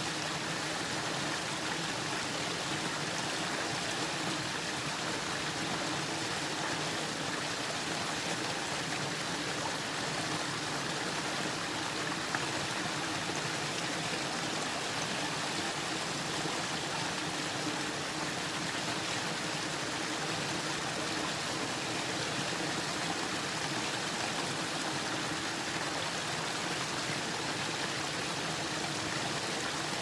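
Small mountain brook spilling in a thin sheet over a stone ledge and splashing into a shallow pool, a steady, unbroken babbling of running water.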